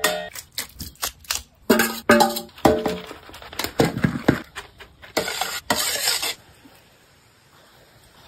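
A steel ladle clinking and scraping against a large aluminium cooking pot as rice is scooped and layered, in a quick run of knocks, some ringing briefly. The clatter stops about six seconds in.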